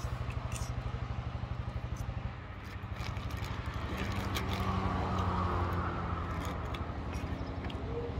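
A nearby vehicle engine idling with a fast, even chug. A little after two seconds the chugging gives way to a steadier engine sound that swells around five seconds and then eases. Small clicks and rustles sound over it.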